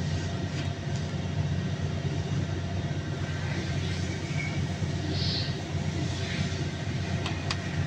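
Steady low mechanical drone from running machinery, with a couple of short metallic clicks near the end.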